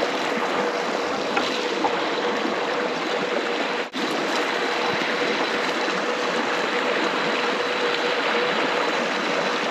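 Stream water rushing steadily, a continuous hiss that drops out briefly about four seconds in.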